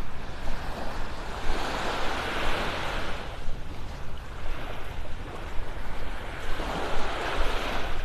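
Small, gentle waves washing up on a sandy beach, the wash swelling twice, about a second and a half in and again near the end. A steady low wind rumble on the microphone lies underneath.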